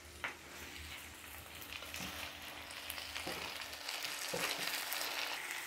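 Shrimp, vegetables and rice noodles sizzling in sauce in a nonstick frying pan as they are stirred with a wooden spatula. The sizzle grows a little louder, and the spatula knocks softly against the pan a few times.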